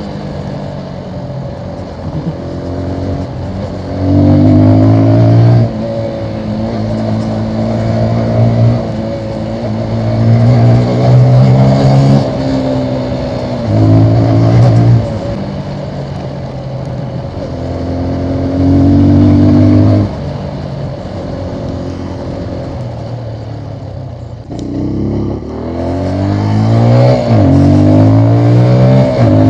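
Keeway RKF 125 motorcycle engine on its stock exhaust, idling and revved in short blips every few seconds, with a run of quicker revs near the end.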